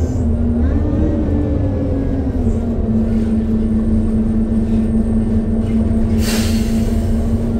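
Engine cooling fan of a Mercedes-Benz O628G Conecto city bus howling, heard from inside the moving bus over the low rumble of engine and road. Its steady whine steps down a little in pitch about two and a half seconds in. The constant howl is a cooling fault, probably in the cooling system as the uploader thinks. A short hiss of air comes about six seconds in.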